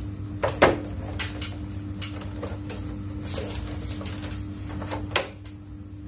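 Plastic casing of a split air conditioner's indoor unit clicking and knocking as it is handled and pressed into place, with three sharper knocks about half a second, three and a half and five seconds in, over a steady low hum.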